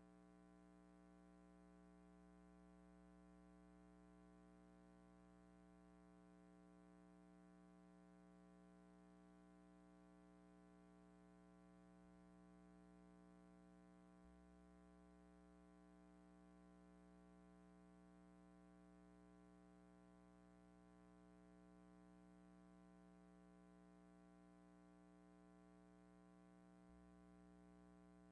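Near silence: only a faint, steady, unchanging hum.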